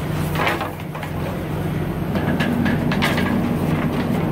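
A steady low engine hum runs underneath, while a tank gauge stick scrapes and knocks in the underground tank's fill pipe twice as the tank is dipped to measure the fuel level.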